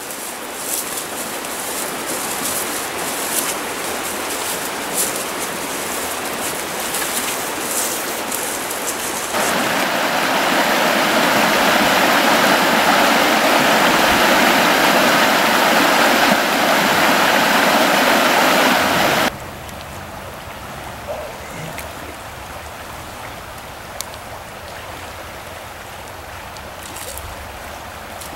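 Flowing stream water, a steady rushing hiss. It grows much louder and fuller about nine seconds in, then drops suddenly a little after the middle to a quieter, lower run of water.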